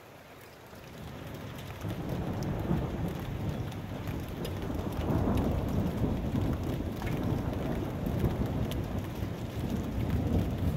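Rain falling with scattered drop ticks, under a deep, uneven rumble that swells over the first two seconds and carries on loud through the rest.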